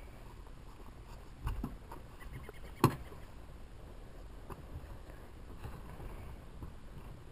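A car door, the driver's door of a Honda S2000, unlatched and swung open, with one sharp click of the latch nearly three seconds in. A soft thump comes a little before it, against a quiet outdoor background.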